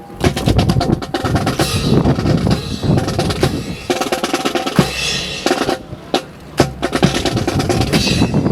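Drumming with snare and bass drum, a dense run of fast strikes with rolls, broken by a short lull about six seconds in.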